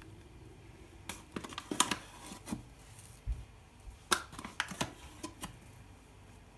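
Metal spoon clicking and tapping against a glass bowl while flour is scooped in, with a soft low thump about halfway through.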